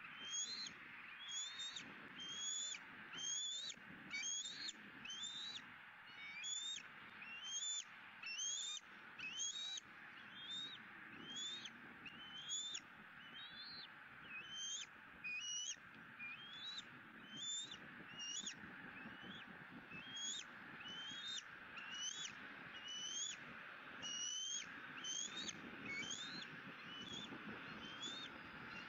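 Bald eagle nestling peeping: a short, high, thin note that rises at the end, repeated about once a second, over a steady background hiss.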